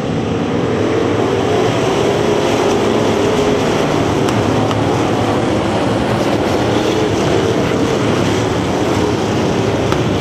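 A pack of bomber-class dirt-track stock cars racing past, many engines running hard together in a loud, steady drone.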